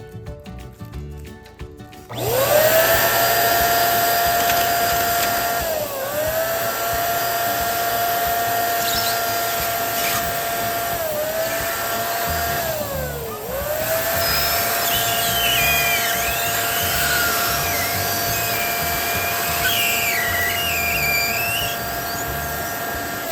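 Small electric motor, most likely an electric balloon pump, spinning up about two seconds in and running steadily. Its pitch sags briefly three times, as if loaded, and it winds down near the end. Squeaky high chirps, like balloon rubber being handled, come in during the second half.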